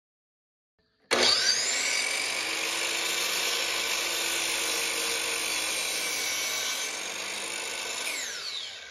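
DeWalt sliding miter saw cutting wood: the motor starts suddenly about a second in with a rising whine, runs steadily through the cut, and winds down with a falling whine near the end.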